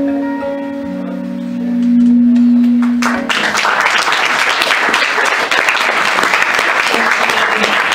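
The song's last notes on acoustic guitar ring out for about three seconds, then an audience bursts into applause that carries on steadily.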